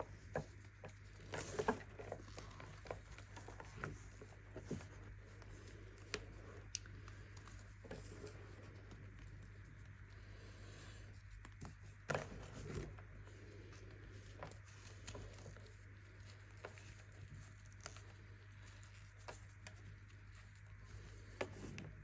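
Pressed baking soda being crushed and crumbled, with soft, irregular crunches and crackles. The loudest come about a second and a half in and again about twelve seconds in, over a steady low hum.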